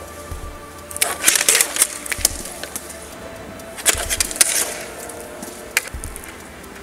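Hockey sticks clacking and scraping against each other and the court surface in an inline hockey faceoff: a flurry of sharp clacks about a second in, a second flurry near the middle, and a lone sharp clack near the end.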